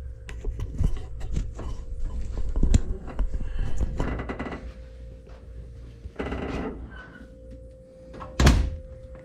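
Scattered knocks, clunks and rustling, with one louder thump about eight seconds in.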